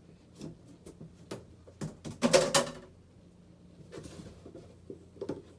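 Kitchen items being handled: scattered light knocks and clicks, with one louder rustling scrape a little over two seconds in.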